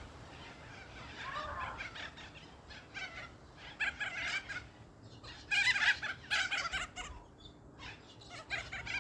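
Birds calling in the background: bursts of rapid, chattering calls, the busiest about four seconds in and again from five and a half to seven seconds.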